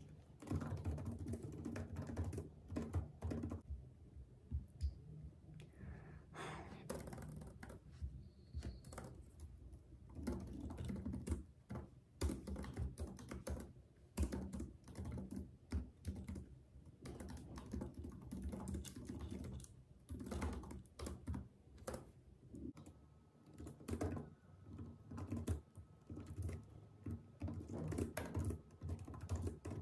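Typing on a laptop keyboard: quick, irregular key clicks in flurries, with brief pauses between them.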